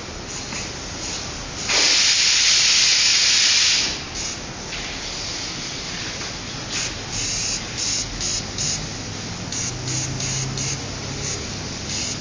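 Airbrush spraying: one long hiss of about two seconds, then a run of short hissing spurts as the trigger is pressed and released.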